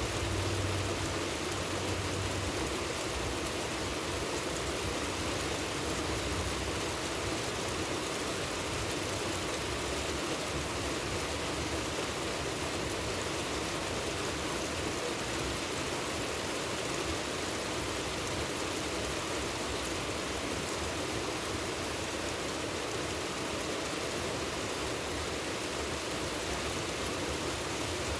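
Steady rain falling, an even hiss with no breaks; a faint low hum sits under it for the first two or three seconds.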